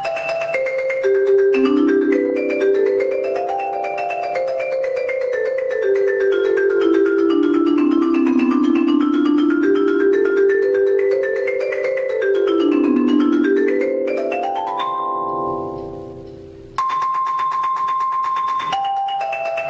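Dynasty concert marimba played with mallets: fast rippling patterns of notes climbing and descending in waves. About fifteen seconds in the sound fades almost away, then starts up again abruptly near the end.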